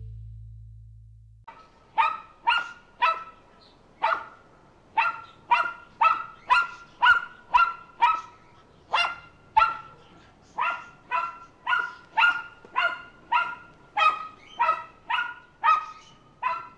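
Background music fading out, then about a second and a half in a dog starts barking, short sharp barks repeated evenly at nearly two a second.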